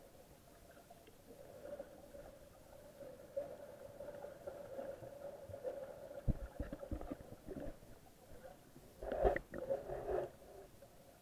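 Muffled underwater sound picked up by an action camera in a waterproof housing: a faint steady hum, then scattered dull knocks and sloshing bursts from about six seconds in, loudest around nine seconds.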